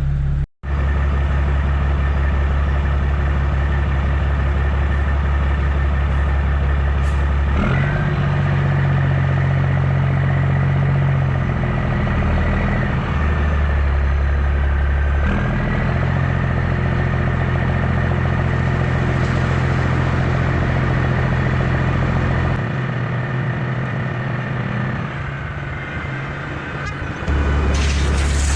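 A Kenworth W900B dump truck's Caterpillar C13 inline-six diesel runs steadily, heard from the cab as a low drone. Its note shifts a few times, and it drops lower and quieter between about 23 and 27 seconds.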